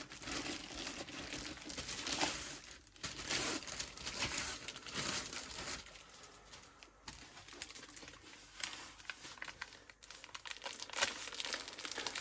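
Packaging of a diamond painting kit crinkling and rustling as it is handled and opened, in irregular bursts that ease off in the middle and grow louder again near the end.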